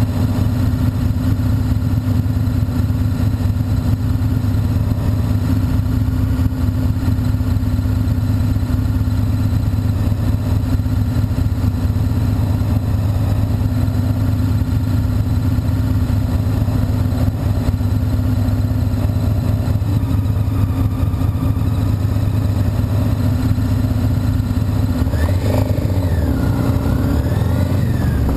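Honda CBR motorcycle engine idling steadily at a standstill, then revving up and pulling away near the end with a rising and falling engine pitch.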